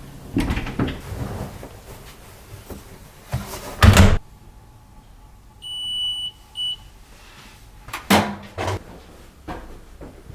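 Household knocks and clatter, with one loud thump about four seconds in. After the thump an electronic appliance beeps twice, a longer beep then a short one, and more knocks follow.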